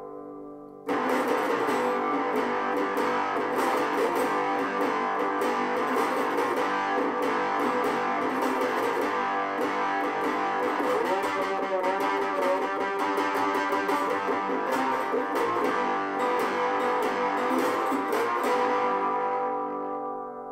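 Four-string cigar box guitar with a dog-dish resonator cone, heard through its piezo pickup and a small homemade 5-watt amplifier set to low gain. A strummed riff starts about a second in, plays steadily, and rings out and fades near the end.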